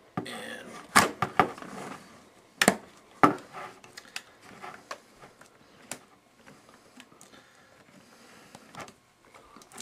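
Allen wrench clicking and scraping as it turns the stock bolt inside a Blackhawk SpecOps shotgun stock, with knocks from handling the stock. The sharpest clicks come in the first few seconds, then lighter ticks.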